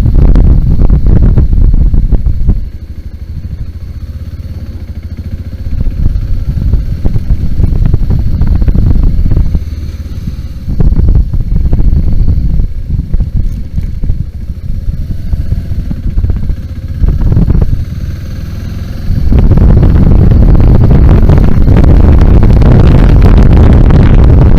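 BMW G 650 GS single-cylinder motorcycle being ridden off road, its engine running under changing throttle with heavy wind rumble on the microphone. It is quieter from about three to six seconds in and loud again over the last five seconds.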